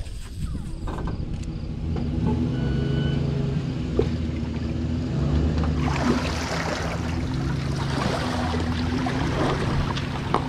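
Background music: low, heavy sustained synth notes that shift in pitch every second or two, with a harsher, noisier layer from about six seconds in.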